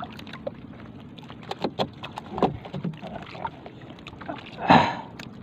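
Small clicks, knocks and rustles of hands working a fishhook, a caught fish and a mesh bait bag in a small wooden boat, over a low steady background. Near the end comes one brief, louder burst of noise.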